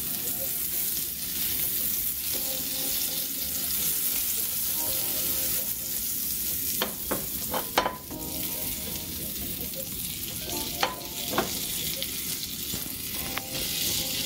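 Butter sizzling as it melts and foams in a stainless steel frying pan on medium heat: a steady hiss, with a few sharp crackles in the second half.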